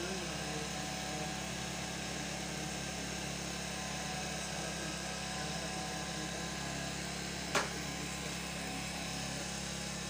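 Steady motor drone, unchanging throughout, with one sharp click about seven and a half seconds in.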